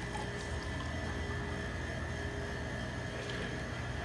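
A shaken cocktail being strained from a metal shaker tin into a champagne flute: a steady trickle of liquid, over a low, steady hum.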